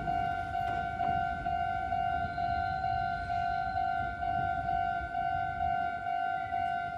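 Electronic warning bell of a Japanese railway level crossing ringing, one repeated tone pulsing about twice a second, signalling that the crossing is closed for a train. A low rumble runs underneath.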